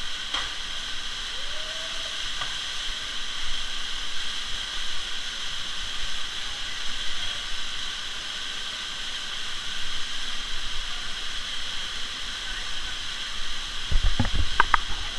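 Waterfall pouring into a canyon pool, a steady, even rush of water like a hiss. A few low thumps come about a second before the end.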